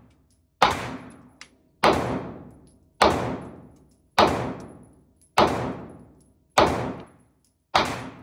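Taurus GX4 9mm pistol firing seven single shots at a steady pace, about one every 1.2 seconds, each shot ringing out in a long echo off the indoor range.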